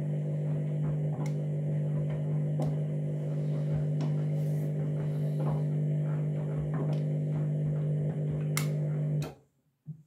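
Candy washing machine humming steadily with a few faint clicks during an unusually long startup phase of an overloaded, detergent-overdosed synthetics 40 wash; the hum cuts off abruptly near the end.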